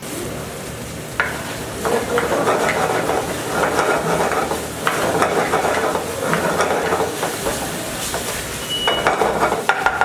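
Pan-fried momos sizzling in a hot kadai with their masala, while a metal spatula stirs and scrapes against the pan in repeated strokes.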